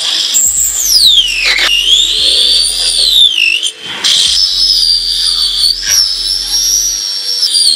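Background music led by a high, whistle-like electronic tone that glides up and down in pitch over a steady accompaniment.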